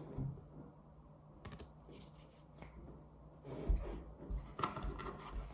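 Tarot cards being shuffled and handled: scattered soft rustles and clicks of card stock, with a few duller knocks in the second half.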